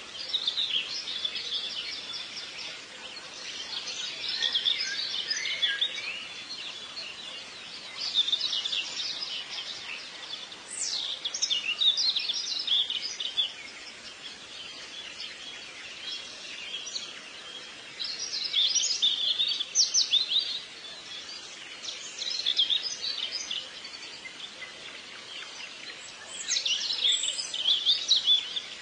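Birds singing in short chirping phrases every few seconds, over a steady faint background hiss.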